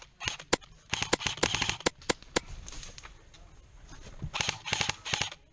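Airsoft gunfire: sharp, irregular pops and clicks of guns firing and BBs striking, in a dense run over the first two and a half seconds and another burst about four to five seconds in.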